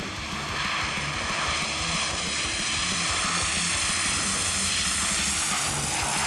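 Lockheed C-130 Hercules four-engine turboprop at high power on its takeoff roll: a steady propeller and turbine whine made of many even tones, creeping slightly higher in pitch.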